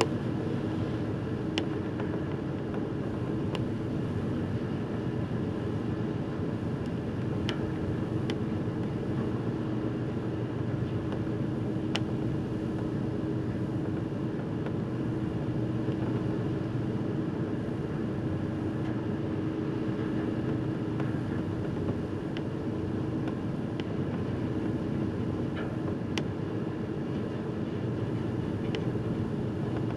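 Steady low drone of a car ferry's engines heard on board while under way, with a constant hum and a few faint ticks.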